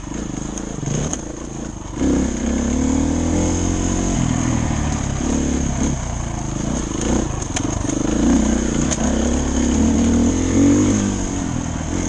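Dirt bike engine running under changing throttle, its revs rising and falling, with a jump in throttle about two seconds in.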